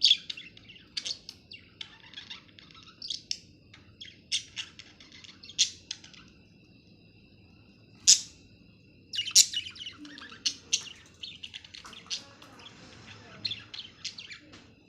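Budgerigars chirping and chattering: a quick, irregular run of short, sharp high chirps, the loudest right at the start and about 8 seconds in.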